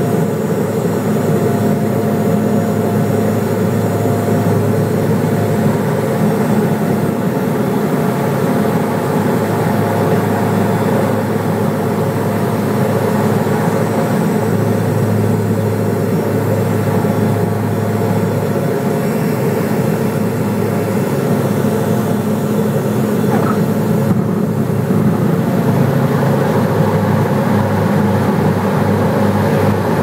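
Propeller airliner's engines and propellers droning steadily, heard from inside the cabin during landing and the rollout on the runway. The low engine note shifts a few times in the second half.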